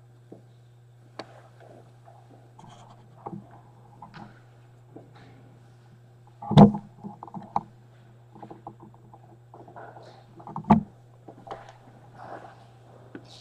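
Scattered footsteps and small knocks on a wooden floor, with two loud thumps about six and a half and ten and a half seconds in, over a steady low hum.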